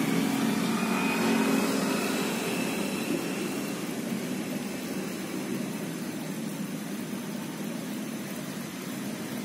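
Steady engine rumble from a passing motor vehicle, slowly fading away.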